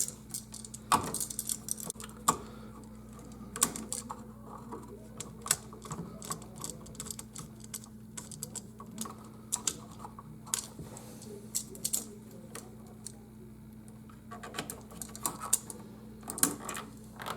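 Irregular small clicks and taps of hand tools and copper wires being worked on a light switch's terminal screws, as the wires are hooked around the screws and fastened. A faint steady hum runs underneath.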